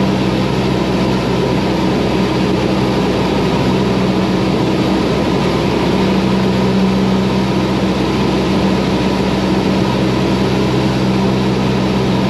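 Cessna 172's piston engine and propeller droning steadily in flight, heard through the aviation headset intercom.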